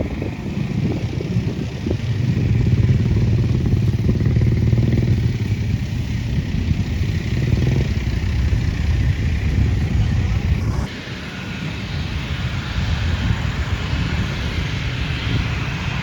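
Road-vehicle engine noise, a heavy low rumble as traffic runs close by. About eleven seconds in it cuts off abruptly and gives way to a quieter, hissier engine sound.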